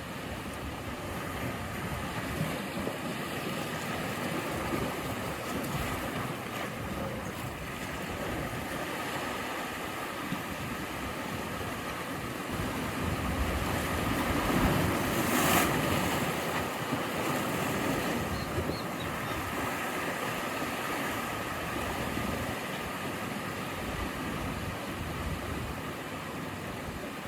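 Sea surf: a steady rush of waves washing on the shore, with one wave swelling and breaking louder about fifteen seconds in.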